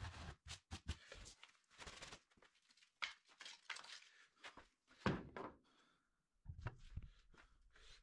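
Hands handling wooden cut-out discs and tools: scattered light knocks, scrapes and rustles, with sharper knocks about three seconds in and again about five seconds in.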